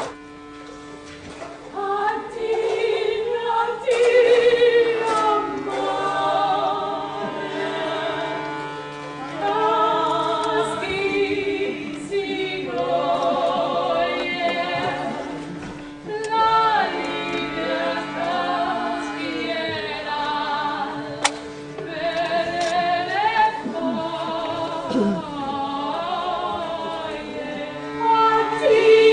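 Several singing voices holding notes with wide vibrato in phrases a few seconds long, over steady low held tones, with one sharp click about two-thirds of the way through.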